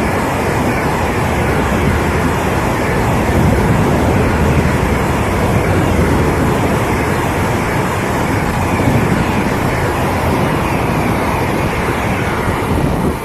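Express train coaches rushing past at high speed, a loud steady roar of wheels and wind that drops off suddenly at the very end as the train clears.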